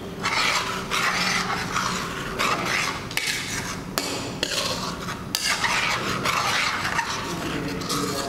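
Metal spoon stirring and scraping thick chilli sambal paste around a wok in repeated strokes, with a few sharp clinks of the spoon against the pan.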